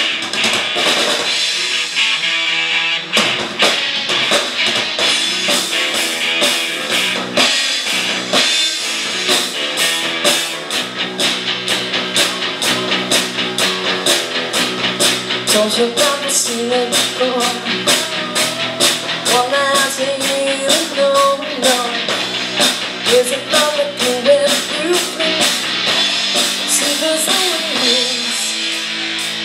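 Live rock band playing electric guitars, bass and drum kit at a steady beat, with a woman singing lead from about halfway through.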